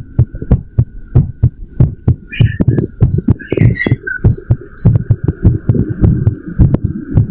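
Human heart beating fast after a run: a quick, even string of low thumps.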